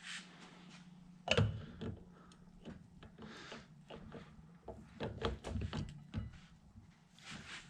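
Knocks and clicks of inner CV joint parts being handled for reassembly on a UTV drive axle, with a loud knock about a second in and a run of sharper clicks around five to six seconds in, over a low steady hum.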